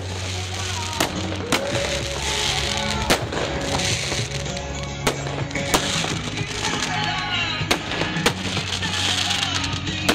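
Fireworks shells bursting overhead, a sharp bang about once a second, over steady background music.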